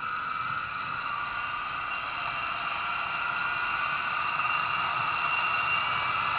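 Zip line trolley whirring along the steel cable, a steady whine that grows slowly louder as the rider comes closer.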